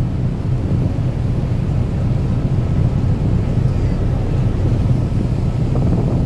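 Wind buffeting the microphone on the open deck of a moving car ferry: a loud, steady low rumble.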